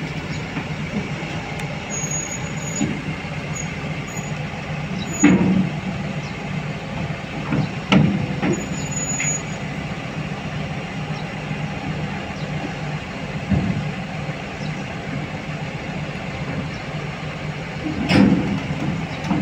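Heavy diesel engine of a SANY SCC550A crawler crane running steadily as the crane creeps along on its tracks, with sharp knocks about five, eight and eighteen seconds in.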